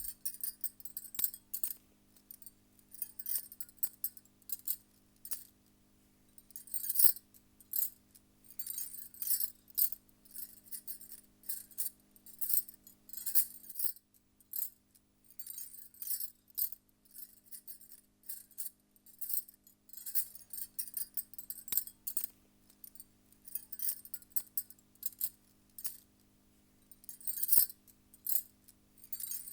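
Bangles jingling and clinking against each other as they are shaken and moved, in irregular bursts of about a second with short pauses between.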